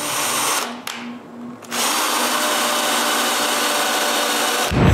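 Drill press running as a tap in its chuck cuts threads into a screw hole in a wooden block. The machine noise dips for about a second early on, then runs steadily, and a loud low thump comes near the end.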